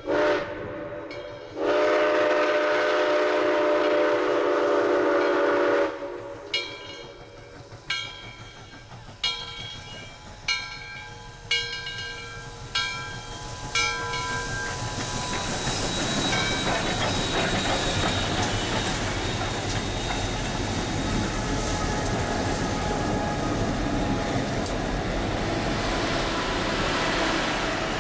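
Southern Railway 630's steam whistle blowing a short toot and then one long blast, followed by a bell clanging about once a second. The locomotive then passes close by, a steady loud rumble and clatter of the engine and its train on the rails.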